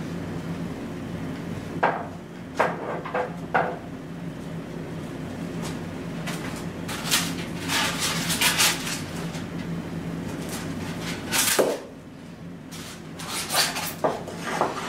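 Expanded polystyrene foam block and offcuts being handled on a wooden guide and workbench: a few knocks and taps, then stretches of foam rubbing and scraping against foam and wood, with a louder knock later on. A steady low hum runs underneath.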